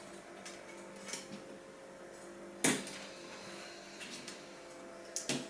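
Sharp clicks and knocks of plastic parts being handled and unclipped while dismantling a Macintosh Classic: one loud click nearly three seconds in and a few softer ones, over a faint steady hum.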